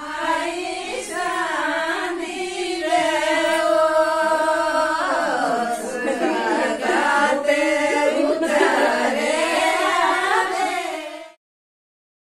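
Women singing a song, the voices holding long, wavering notes; the singing breaks off abruptly near the end.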